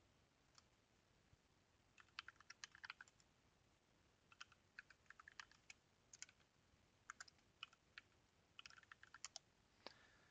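Faint keystrokes on a computer keyboard, typed in several short bursts of quick clicks with pauses between them.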